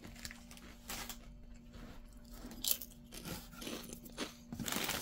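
A person chewing thick kettle-cooked sea salt potato chips, with scattered crunches. A rustle of chip bags starts near the end.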